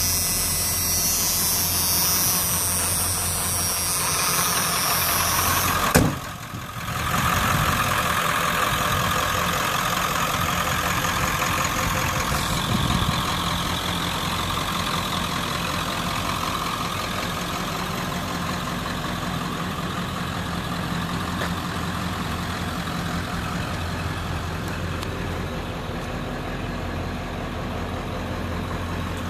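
Ford 7.3-litre Powerstroke V8 turbo diesel idling steadily, with a single sharp thump about six seconds in.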